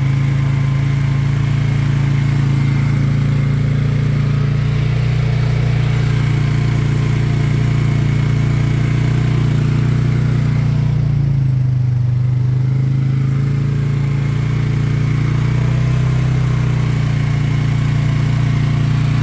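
Polaris Sportsman 570 ATV's single-cylinder engine running steadily at moderate revs, about 3500 rpm, as the quad crawls through floodwater and mud.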